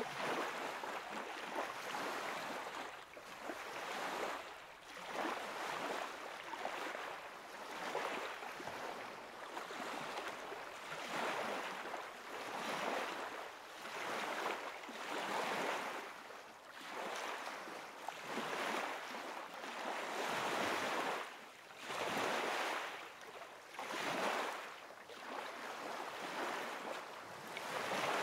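Outdoor rushing of wind and small waves on a lakeshore, a noise with no tones that swells and eases every second or two.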